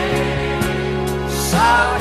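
Background music: a slow song with a steady backing, and a held melody line coming in about one and a half seconds in.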